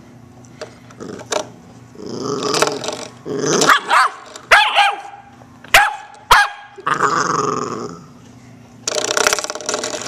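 A puppy growling and barking, with rough growls broken by a few short, sharp yapping barks about halfway through.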